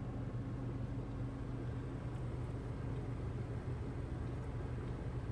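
Steady low rumble with a constant hum, heard from inside a stopped car's cabin beside a passing iron ore train.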